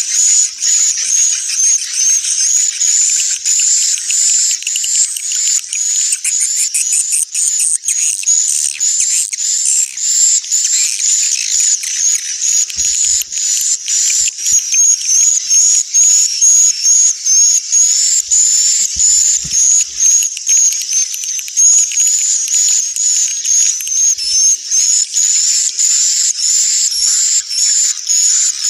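Swiftlet calls: a dense, continuous twittering of many rapid, high chirps with no pause. This is a recorded 'inap' (roosting) lure call, played in swiftlet houses to draw the birds in to roost and nest.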